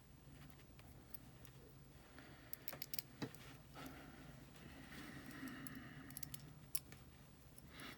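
Faint small metal clicks and clinks of a wood bead drill bit's screws being tightened and the bit handled, with a few sharper ticks about three seconds in and again near seven seconds, over a faint steady hum.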